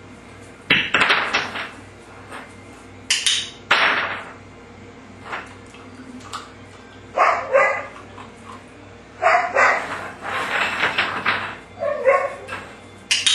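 American bulldog puppy barking repeatedly in short, loud bursts, some of them higher, yipping barks.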